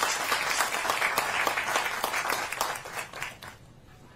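Audience applauding, the clapping dying away about three and a half seconds in.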